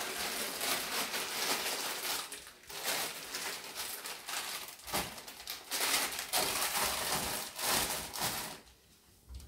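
Plastic food packaging rustling and crinkling as packets are handled and put onto pantry shelves, dying away near the end.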